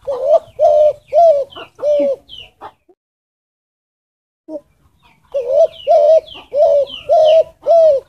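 Spotted dove (derkuku) cooing: a run of four low coos, a gap of silence of about two seconds, then five more coos. Faint higher chirps of small birds sound above the coos.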